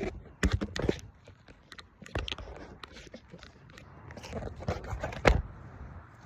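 Handling noise as a camera is set up: irregular knocks, scrapes and crunches close to the microphone, coming in clusters, the loudest knock near the end.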